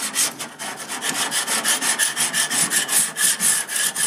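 A dual grill scraper rasping rapidly back and forth across a Holland Grill's cooking grid, at about four to five strokes a second, as it scrapes off built-up black charred grease.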